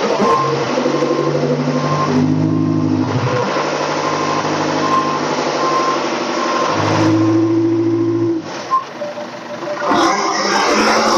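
A rough-terrain telehandler's engine revving and changing pitch as the machine moves, while its backup alarm beeps about once every 0.8 s until about nine seconds in.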